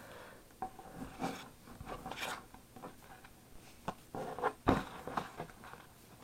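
Pokémon trading cards and their packaging being handled: soft, scattered rubbing and sliding sounds with a few light clicks, a little louder a bit past the middle.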